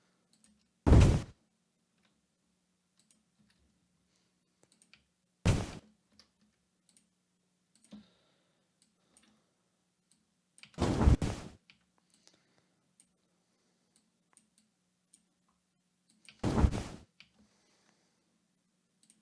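A large creature wing-flap sound effect played back four times, about five seconds apart, each a short heavy flap with a deep low end. The designer is trimming out a high-pitched hit from the flapping recording. Faint computer mouse clicks fall between the flaps.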